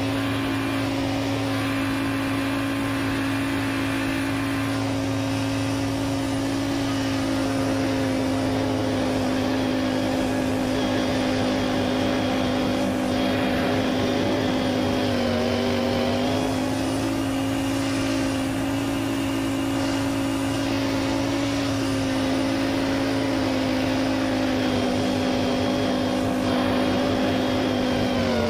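John Deere X570 lawn tractor engine running steadily at working speed, driving its front-mounted snowblower through wet snow. The engine pitch dips briefly about halfway through and again at the end as it takes on load. The audio is sped up to double speed.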